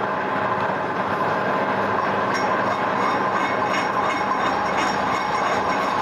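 Electric arc welding, running steadily, with a low steady hum underneath.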